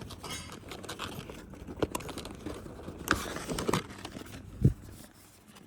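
Packaging of a pack of light bulbs being handled, crinkling with scattered light clicks and taps, and one dull thump nearly five seconds in.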